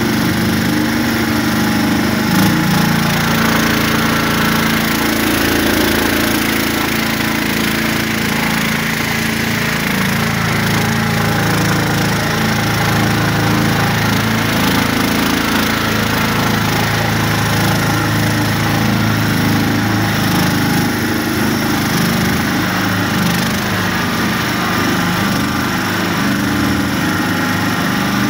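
Homemade all-terrain vehicle's engine running steadily as it drives across boggy ground, its pitch wavering slightly with the load.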